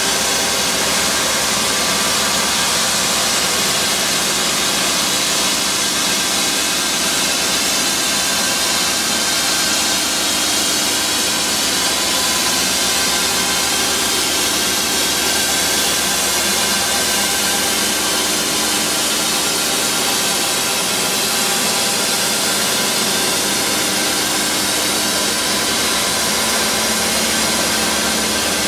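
Dramm TracFOG PTO-driven fogger running on a tractor and blasting fog out of its nozzle, a loud, steady rushing hiss with the tractor's engine running underneath.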